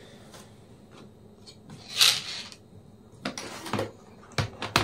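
Handling noises of laptop parts being fitted together: a short scraping rasp about two seconds in, then several sharp plastic-and-metal clicks and taps near the end.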